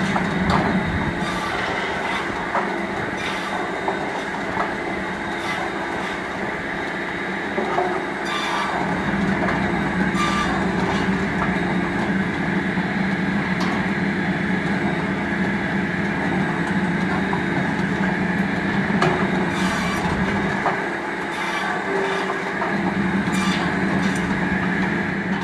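Tractor-powered AMR Solomat Auto automatic firewood circular saw running steadily, with irregular knocks and clatter as logs are fed, cut and dropped onto its conveyor.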